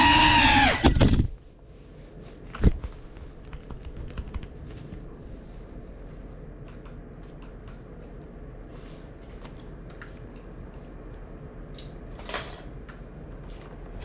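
GEPRC CineLog35 quadcopter's motors whining at high pitch, wavering up and down, then cutting out about a second in as the drone sits on the floor. After that only a low, steady room hum remains, with scattered light clicks and taps, one sharper knock shortly after, and a brief rush of noise near the end.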